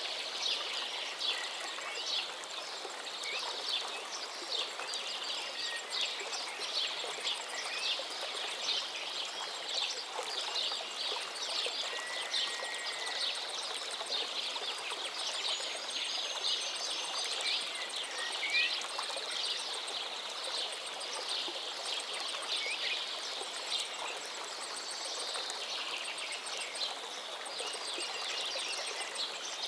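Many small birds chirping and twittering at once, short overlapping high calls, over a steady hiss of outdoor ambience, with a fast run of very high repeated notes at times.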